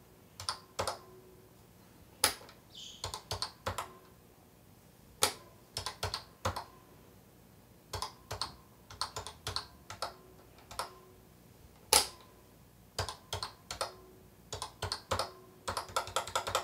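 Keys of an HP-97 desktop calculator being pressed: sharp plastic key clicks at irregular intervals, single presses with short pauses between them and some quick runs, the loudest just after two seconds in and at about twelve seconds.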